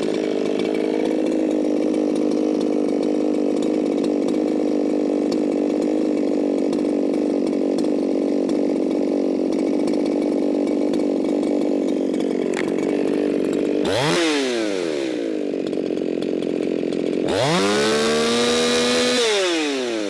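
Modified Echo 4910 two-stroke chainsaw running at a high, steady wide-open-throttle scream. The owner takes it for set way too lean at about 15,000 RPM. About 14 s in the revs drop off sharply, then near 17 s they climb quickly back up and fall away again at the end.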